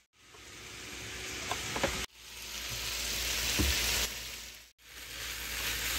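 Food sizzling as it is stir-fried in a hot pan, with a few light clinks of a utensil about a second and a half in. The sizzle cuts off abruptly twice and swells back up.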